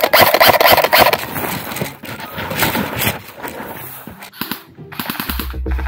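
Airsoft rifle firing, a rapid burst in the first second, then scattered single shots and clicks.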